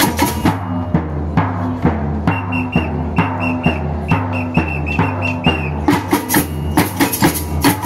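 Samba batucada percussion playing a steady groove: a surdo bass drum under quick stick strokes on small hand-held drums. A short high note repeats in time with the beat through the middle.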